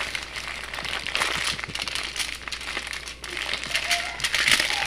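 Plastic wrapping crinkling as it is handled: a run of quick, irregular crackles that grows loudest near the end.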